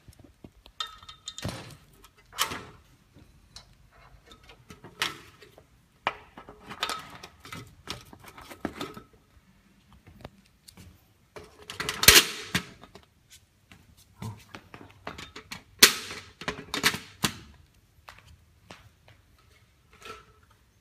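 Scattered clicks, knocks and rattles of a CPC reflector and its clips being handled and fitted under the glass vacuum tubes of a solar water heater. The loudest knocks come about twelve and sixteen seconds in.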